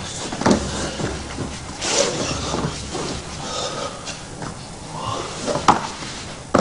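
Two men grappling on a mat: bodies and limbs thump and slap against the mat and each other, with scuffling and heavy breathing. The sharpest thumps come about half a second in, about two seconds in, and near the end.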